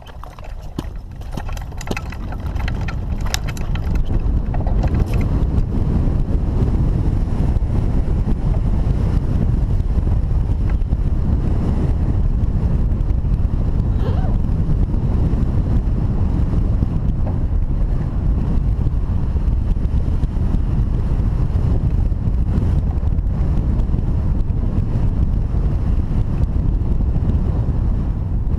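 Wind rushing over the microphone of a hang glider during launch, with a few knocks in the first few seconds, then building to a loud, steady low rush as the glider gains speed and flies.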